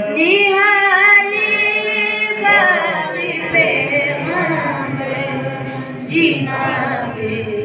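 Unaccompanied chanted singing of a Balti qasida, a devotional poem, by a young reciter. Long held notes bend up and down at the start, then come shorter ornamented phrases, with a new phrase beginning about six seconds in.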